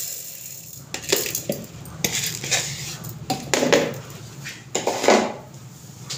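Stainless-steel mixer-grinder jar being handled on the counter, making a string of irregular metallic clinks and knocks; the loudest come about halfway through and near the end.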